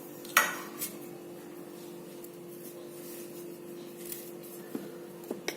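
A few light knocks and clicks of kitchen things being handled: one sharp knock about half a second in, smaller clicks later, two of them near the end. Under them runs a steady low hum.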